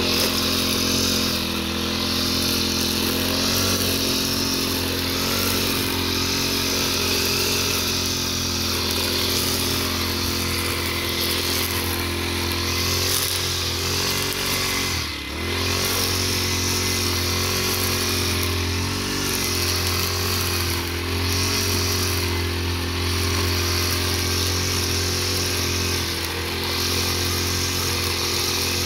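Petrol brush cutter with a line-trimmer head running at cutting speed, its engine note steady as it cuts grass. About halfway through, the revs dip briefly and come back up.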